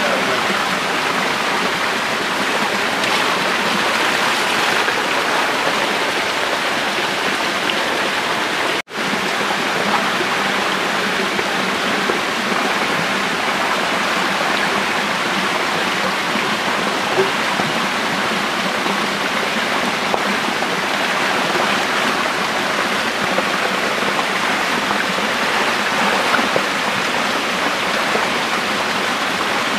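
Dense, steady splashing of shallow water churned by a crowded mass of small magur catfish, with a net dragged through it and feet wading, making an even rain-like hiss. The sound cuts out for an instant about nine seconds in.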